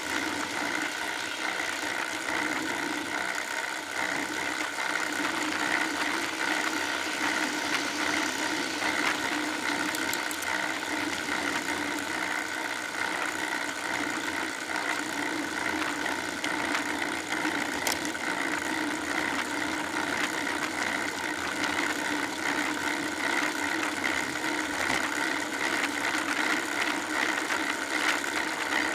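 Steady riding noise picked up by a rear-facing, seatpost-mounted Cycliq camera on a road bike moving over asphalt: an even hum with a light rattle, holding steady throughout.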